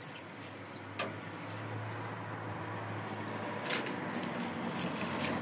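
A cucumber stem being cut off the vine: a sharp snip about a second in and a longer crunching cut near four seconds in. A faint steady low hum sits underneath.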